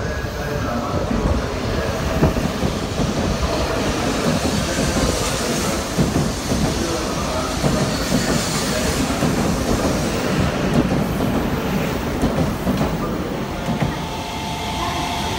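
JR East E4 series double-decker Shinkansen pulling out of the station and running past, a steady rumble of wheels and running gear with many irregular clicks. Near the end, steady humming tones join in.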